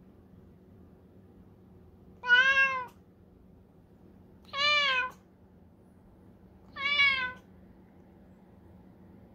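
Tortoiseshell cat meowing three times, about two seconds apart; each meow is a short call that rises and falls in pitch.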